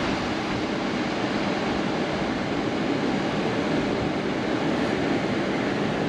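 Electric fan running: a steady, even noise of moving air with no rhythm or pitch.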